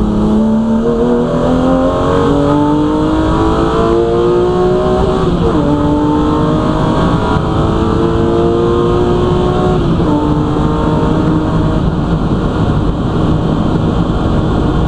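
BMW M3 racing saloon's engine heard from inside the cockpit, accelerating hard with a rising pitch. It upshifts twice, the note dropping about five seconds in and again about ten seconds in, then holds a nearly steady pitch.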